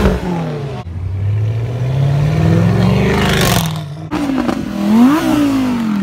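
Performance car engines accelerating hard past one after another: one engine's pitch climbs for a couple of seconds, then after a short break another car revs up and its pitch drops as it goes past.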